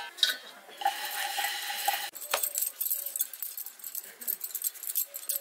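Bangles jingling and clinking on the wrists as hands shape a ball of roti dough, a run of light, quick ticks. About a second in, a steady tone sounds for roughly a second.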